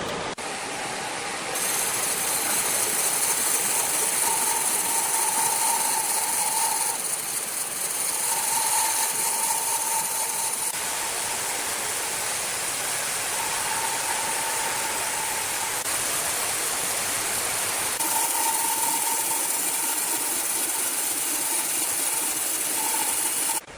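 Sawmill machinery running steadily, with a saw's whining tone that comes and goes in spells of two or three seconds.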